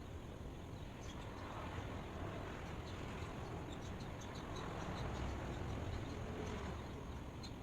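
Outdoor ambience: a steady low rumble with scattered short high chirps and a faint steady high tone.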